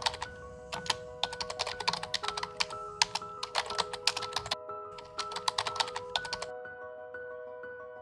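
Rapid runs of typing clicks over soft music with held notes; the typing stops about six and a half seconds in while the music carries on.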